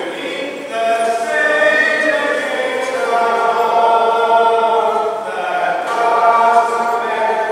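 Slow sung liturgical chant, voices holding long notes with no instruments.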